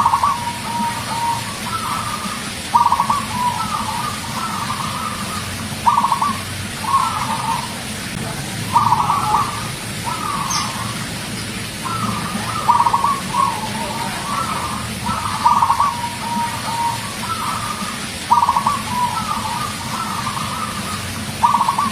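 Zebra dove (perkutut) singing its cooing song over and over: about eight phrases, each a quick run of stuttering notes followed by softer trailing coos, one every two to three seconds.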